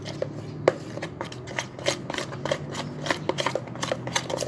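A slime mixture being stirred in a container, the utensil making quick irregular clicks and taps against the sides as the mixture starts to clump.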